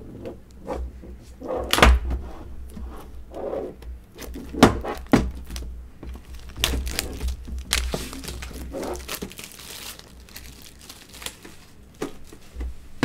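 A metal Pokémon TCG tin being handled on a desk: several sharp knocks as it is set down and turned over, and plastic wrapping crinkling and tearing for a couple of seconds about two-thirds of the way through.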